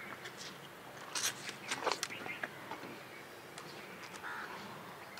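Wet slurping and sucking as juicy watermelon is bitten into fast, with a few sharp slurps about one and two seconds in.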